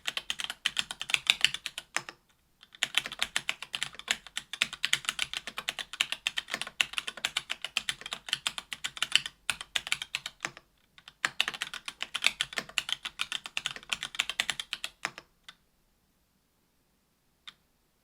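Fast typing on an AL.BOK mechanical keyboard with stock 40 g Gateron Clear linear switches, an aluminium plate and GMK keycaps: a steady run of key clacks with two brief pauses. It stops about fifteen seconds in, and one single keystroke follows near the end.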